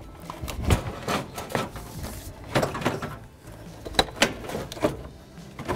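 An alternator being worked by hand down into place in the engine bay, giving a series of irregular knocks and clunks as it bumps against surrounding parts.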